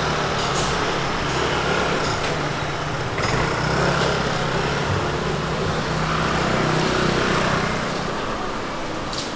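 An engine running steadily under a haze of street noise, with a few sharp clinks; the engine sound fades about eight seconds in.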